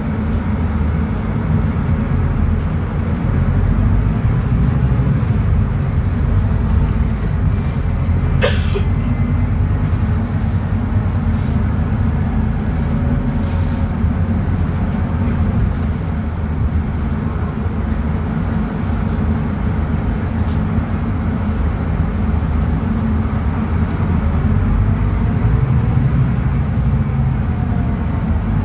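Scania DC09 five-cylinder diesel of a Scania K250UB midibus running under way, heard from inside the bus with a steady low rumble of engine and road. A brief sharp noise stands out about eight seconds in.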